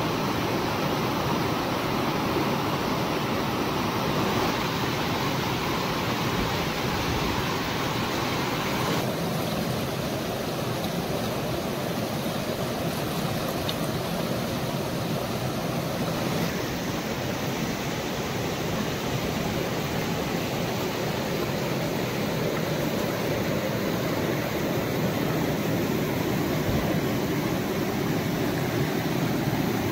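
Muddy rainy-season floodwater rushing and churning in white-water rapids over rocks: a steady, unbroken rush of water. Its tone shifts slightly a few times.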